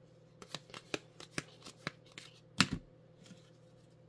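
Baseball trading cards being flipped through by hand, each card flicked and slid off the stack: a quick, uneven series of crisp card snaps, with the loudest snap about two and a half seconds in.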